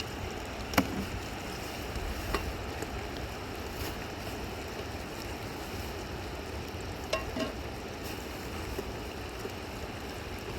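Steady rushing of a river's flowing water, with a few sharp clicks or knocks near the start and in the second half.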